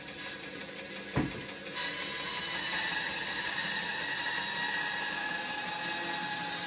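Bandsaw running and cutting crosswise through a rowan log, a steady hiss with a faint whine. A single thump comes about a second in, and the sound grows louder as the blade bites into the wood about two seconds in.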